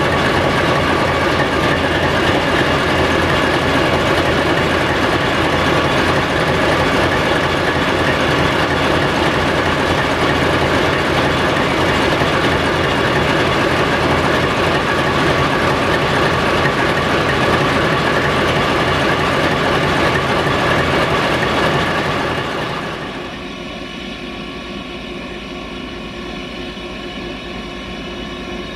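Kolomna 5D49 V16 diesel engine of a BR232 'Ludmilla' locomotive running steadily, heard loud and close from inside the engine room, with steady high tones over the engine's dense clatter. About three-quarters of the way through, the sound drops to a quieter hum of the same locomotive heard from outside.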